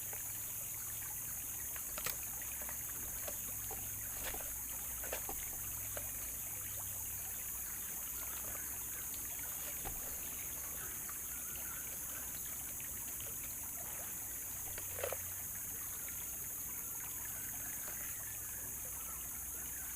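River water flowing steadily, with a steady high hiss and a few faint clicks or knocks about 2, 4, 5 and 15 seconds in.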